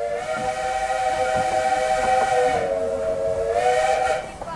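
Steam locomotive whistle on a narrow-gauge steam railway, one long blast of several tones sounding together over a rush of steam hiss, its pitch sagging briefly past the middle and rising again before it cuts off.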